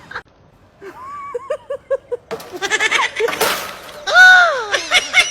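An animal crying out: a run of short pitched calls, a brief rush of noise, then one loud long cry that rises and falls about four seconds in.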